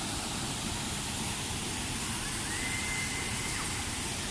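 Waterfall rushing steadily, an even wash of falling water. A faint, thin high whistle is heard for about a second past the middle.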